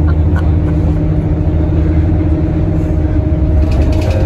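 Steady low engine and road rumble of a moving bus, heard inside its passenger cabin, with a constant engine hum running under it.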